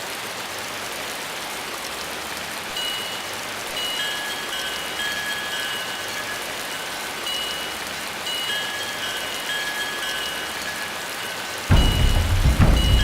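Steady rain-like hiss with sparse high chime-like notes that come and go. Near the end a loud low rumble starts suddenly, much louder than the hiss.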